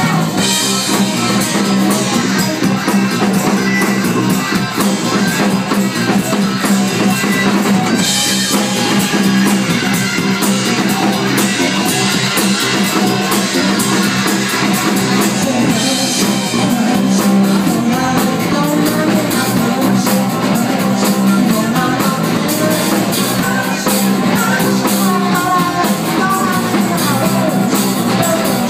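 Live rock band playing: drum kit, electric guitars and bass, with a male lead singer.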